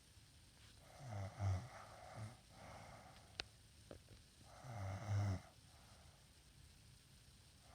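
A sleeping woman snoring: two loud snores with a low, fluttering rattle, about a second in and about five seconds in, with softer breaths around them. There is a sharp click between the two snores.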